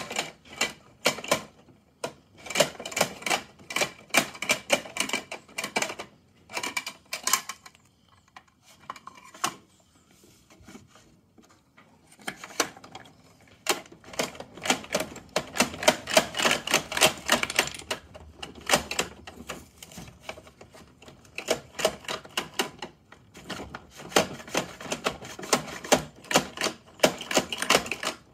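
Plastic mechanism of a toy Mack garbage truck clicking rapidly as a hand works its side lever and arm. The clicks come in runs, with a pause of a few seconds in the first half.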